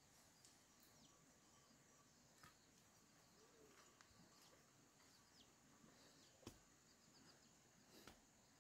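Near silence: faint outdoor ambience with a few soft, high bird chirps and several faint clicks.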